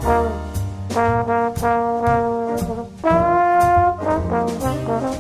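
Jazzy background music led by brass horns over a drum beat and bass, with one long held horn note about three seconds in.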